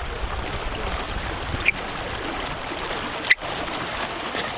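Water rushing and splashing along a sailboat's hull, with wind noise, steady throughout. Two sharp clicks come about a second and a half apart.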